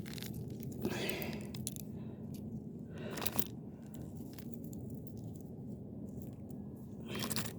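Loose metal screws being picked up by hand from roadside grit: a few scattered crunches, scrapes and small clinks over a low steady background rumble.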